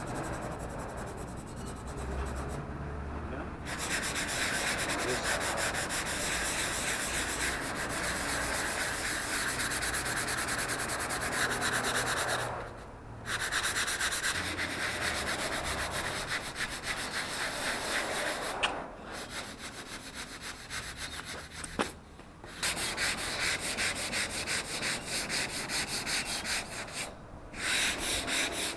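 Hand sanding pad rubbed back and forth over patched plaster filler in quick, continuous strokes, a steady scratching with a few short pauses.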